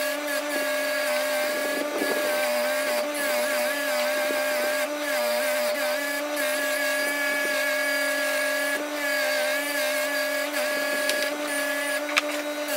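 Record Power bench grinder running with a steady hum, its wire brush wheel scratching across a piece of cast aluminium bronze held against it. The motor's pitch sags slightly whenever the metal is pressed in harder.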